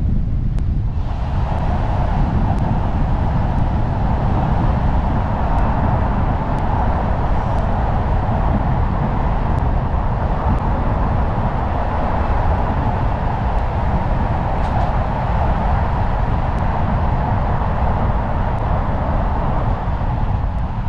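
A car being driven: steady low road and wind noise, with a higher layer of tyre-and-road noise that comes in about a second in and holds.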